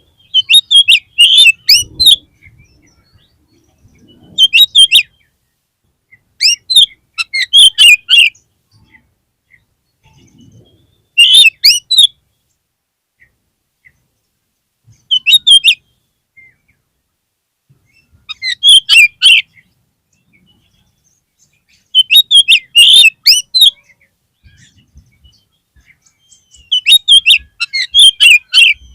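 Oriental magpie-robin (kacer) singing: about eight bursts of quick, high, varied notes, each a second or two long, with short pauses between them.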